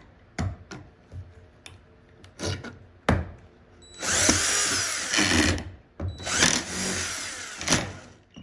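DeWalt drill driving a screw into wood in two runs of about a second and a half each, after a few light knocks as the screw is set.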